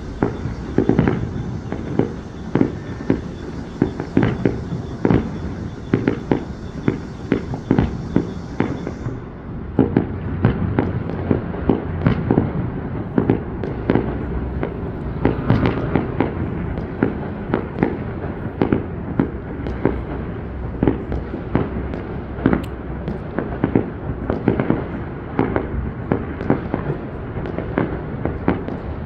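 Fireworks display: shells bursting in quick succession, several sharp bangs a second over a continuous low rumble.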